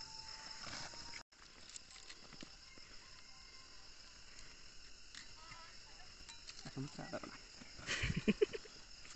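Crickets chirping steadily in a night-time chorus, with faint voices in the background near the end.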